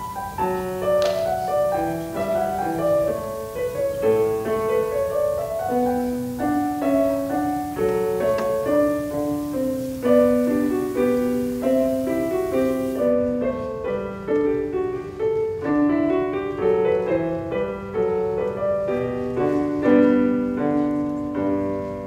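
Casio Privia digital piano played solo: a flowing line of quick notes over lower held notes.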